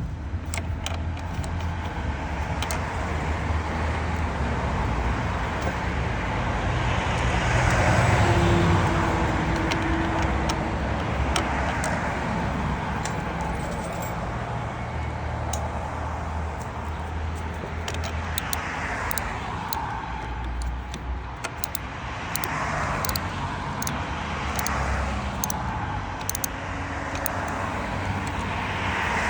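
Small metal clinks and taps of a hand tool working a car battery terminal clamp tight, over road traffic running in the background with swells as vehicles pass.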